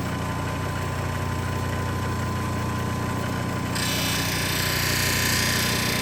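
CabKing 8 cabbing machine running with a steady motor hum; about four seconds in, a grinding hiss comes in as a metal ring component is pressed against its wet grinding wheel to flatten it.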